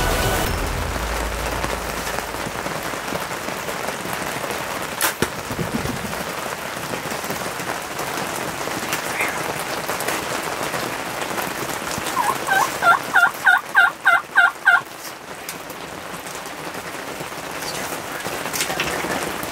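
Steady rain hiss, with a single sharp knock about five seconds in. Past the middle, a wild turkey calls a quick run of about nine notes over some two and a half seconds.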